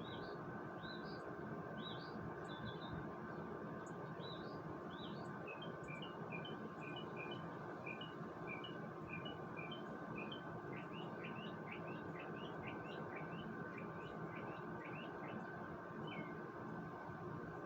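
Small birds chirping, many short high notes in quick series, over a steady background hum.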